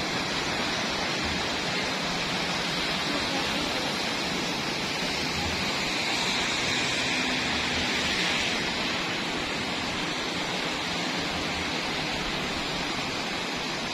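Floodwater rushing steadily through a street, an even, continuous rush.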